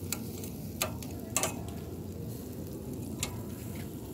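Pork sizzling on a charcoal grill, a steady crackling hiss broken by a few sharp clicks of the metal tongs and popping fat.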